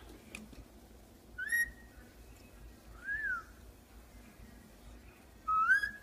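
Indian ringneck parakeet whistling three short notes: the first and last glide upward, the middle one rises and falls, and the last, near the end, is the loudest.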